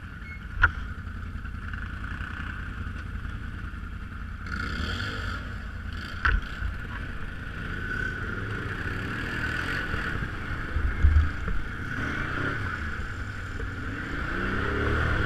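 Engine of a BRP off-road vehicle running steadily at low speed over rough ground, with a sharp knock about half a second in and another around six seconds, low thuds near eleven seconds, and the engine rising in revs near the end.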